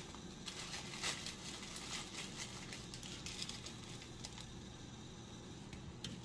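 Light kitchen handling noises at the stove: faint crackles and scattered small clicks over a steady low background hum.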